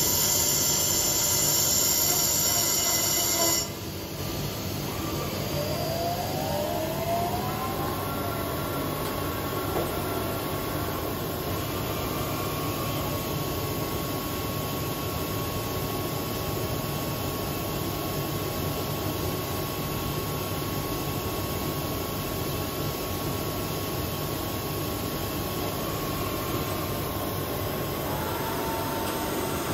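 A loud hiss cuts off suddenly a few seconds in. Then the cylindrical grinder's motor whine rises in pitch over about three seconds and holds steady over a constant machine hum, dropping slightly lower near the end.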